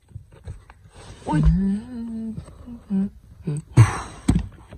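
A voice making wordless vocal sounds: a drawn-out, pitch-bending hum-like sound, then a few short syllables. Near the end, a brief hiss and a sharp knock.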